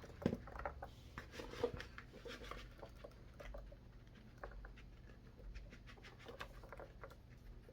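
Scattered light taps and clicks as blueberries are dropped onto batter in a baking dish, with two sharper knocks early on.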